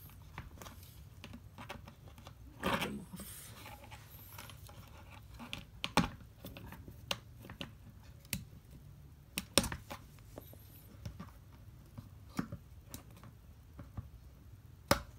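Multi-tool pliers snipping the excess tails off plastic zip ties: several sharp snaps spread out, the loudest about six seconds in, nearer ten seconds and at the very end, with handling rustle of the ties and leather holster in between.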